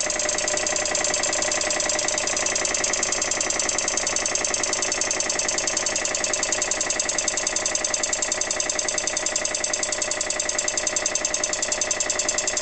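Vintage Dunlop twin-stage air compressor running steadily, its piston pump pulsing rapidly and evenly as it builds tank pressure past 105 psi toward its 120 psi cut-out.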